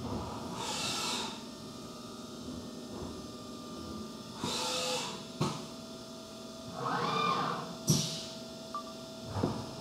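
Haas UMC 750 SS five-axis CNC mill working between cuts, with a faint steady tone underneath. Several short hisses and a few sharp clicks come through, and about seven seconds in a servo whine rises and falls as the axes reposition the aluminium part.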